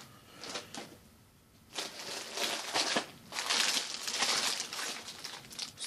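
Clear plastic garment packaging crinkling and rustling as packs are picked up and shuffled by hand; fairly quiet for about the first second and a half, then continuous crinkling.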